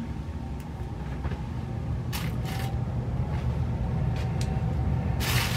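Rustling as clothing is handled and folded, in two short bursts about two seconds in and near the end, over a steady low rumble.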